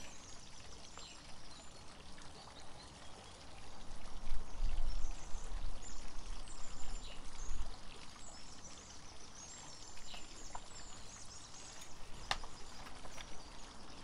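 Backyard water fountain trickling steadily, with faint high bird chirps now and then. A low rumble rises for a few seconds in the middle.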